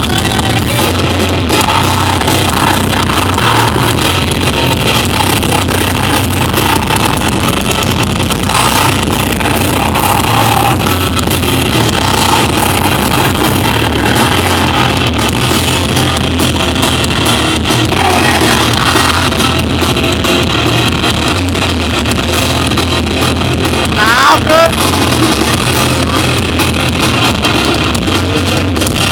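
Rock band playing live at full volume: loud electric guitars over a continuous band sound.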